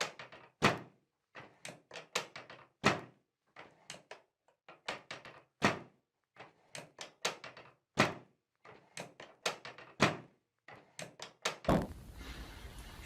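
Repeated thunks and clicks during a rhythmic chiropractic mobilization, a louder knock about every two and a half seconds with smaller clicks between. A rustling noise of handling sets in near the end.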